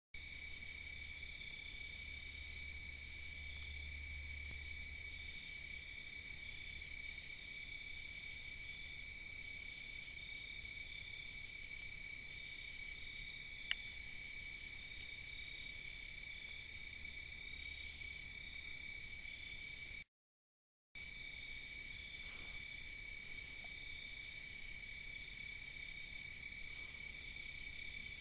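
Steady night chorus of calling insects: one continuous high trill with several faster pulsing calls above it. A single sharp click comes about halfway through, and the sound cuts out completely for about a second two-thirds of the way through.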